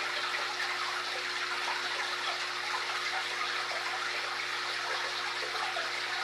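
Aquarium water running and trickling steadily, with a faint steady hum underneath.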